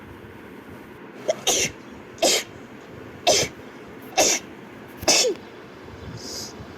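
A girl sneezing five times in quick succession, about one sneeze a second, each sneeze sharp and loud with a quick drop in pitch.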